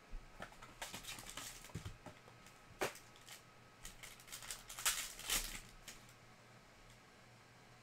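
Foil trading-card pack and its cardboard box being handled and opened: irregular crinkling and sharp clicks, strongest about three seconds in and again around five seconds in.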